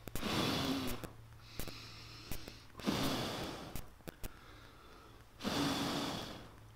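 A person blowing hard into glowing embers to rekindle a nest of brushwood tinder: three long puffs of breath, each about a second, with quieter in-breaths between.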